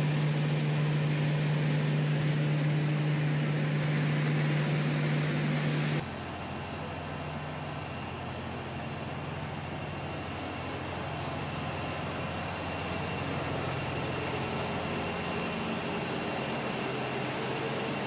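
Olive oil mill machinery running steadily. For the first six seconds there is a loud hum with a strong low drone. After a sudden cut, the malaxer and decanter line gives a quieter, even hum with thin high whines over it.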